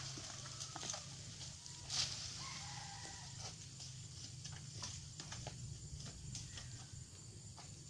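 A long oil-palm harvesting pole working in the palm's crown: scattered sharp clicks and taps of the blade and pole against the fronds, with a louder rustling swish about two seconds in.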